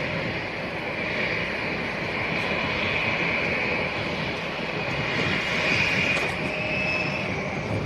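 Airliner engines running: a steady rushing noise with a high whine, swelling a little about six seconds in.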